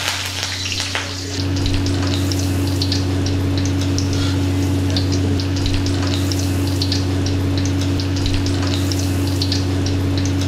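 Garlic cloves and curry leaves frying in hot oil in a kadai: dense sizzling, crackling and sputtering with many small pops. A steady low hum sits underneath and grows louder about a second and a half in.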